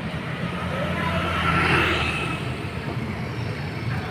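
A large bus passing on the road: its engine and road noise swell to a peak about two seconds in and ease off again, over a steady low rumble of traffic.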